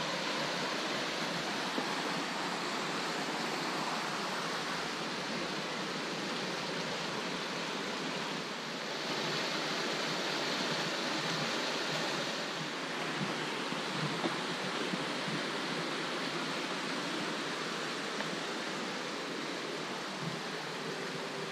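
Steady rush of water from a rocky creek flowing over small cascades.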